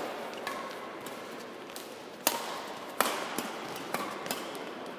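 Badminton rackets striking a shuttlecock in a rally: sharp cracks, the two loudest about three quarters of a second apart near the middle, with fainter hits scattered before and after over a steady hall background.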